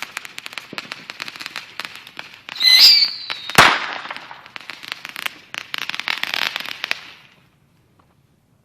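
Fireworks going off: rapid crackling of firecrackers, a short whistle about two and a half seconds in, and a single loud bang a second later. More crackling follows and stops about seven seconds in.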